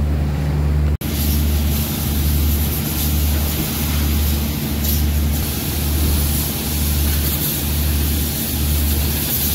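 Car-wash pressure washer running: the hiss of the water jet over a low pump-motor drone that throbs roughly once a second. The sound drops out for an instant about a second in.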